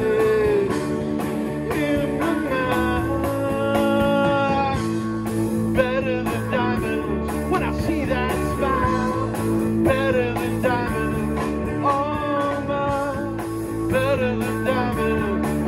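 Live blues-rock band playing: guitar, bass, drums and keyboard, with a singer's voice over them.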